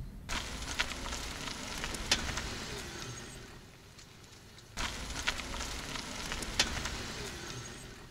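2018 Nissan Leaf rolling slowly backwards with a low hiss of tyre noise and sharp snaps from the rear end, the loudest about a second apart. The same passage is heard twice in a row. The owner suspects a rear brake caliper activating under the e-Pedal as the car rolls back.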